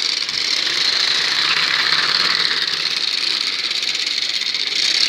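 Small engine running fast and steady, a constant buzz with no change in pitch.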